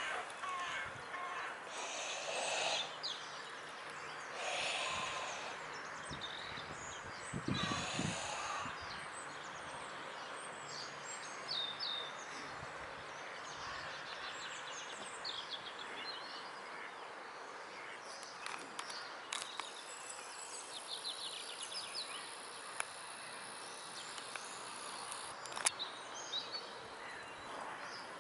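Outdoor ambience: small birds chirping and singing in the background over a steady noisy hiss. There are a few short louder rushes in the first eight seconds and a couple of sharp clicks near the end.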